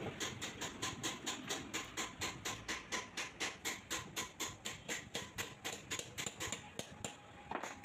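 Hammer tapping a bush into the bore of a Mahindra 575 DI tractor's front axle: quick, even metal strikes about four a second, with a short break near the end.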